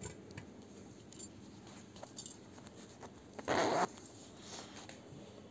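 Zip on a nightie drawn once, a short rasp about three and a half seconds in, with faint handling clicks around it.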